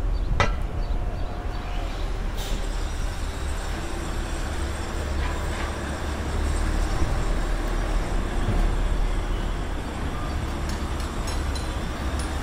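Steady low rumble of a large vehicle or engine, with a sharp click about half a second in.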